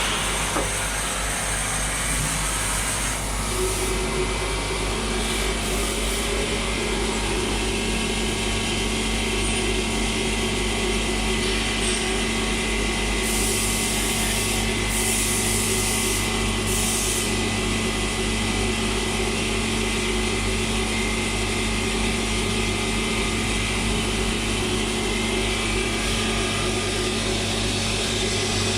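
CNC machine running steadily while milling polyethylene plastic, a constant machine hum with several held tones. Three brief bursts of high hiss come a little before halfway.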